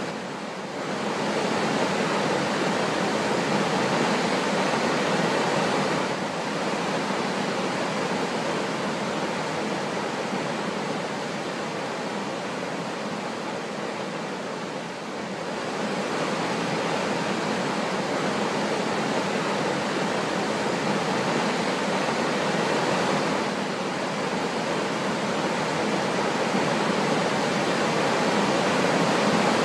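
Steady rush of a waterfall and whitewater river pouring through a rocky gorge, a dense roar of falling water that swells and eases a few times.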